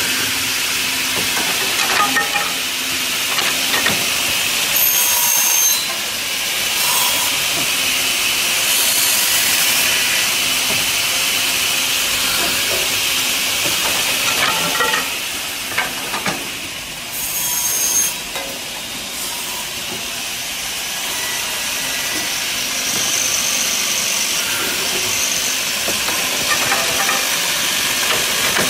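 Automatic two-head cutting and drilling machine for wood running through its cycle, sawing timber over a steady hiss. Short louder bursts come about every twelve seconds.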